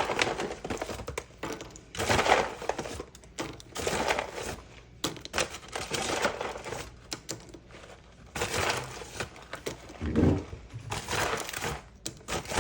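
Irregular crackling and clattering of things being handled, in several separate spells with short sharp clicks among them.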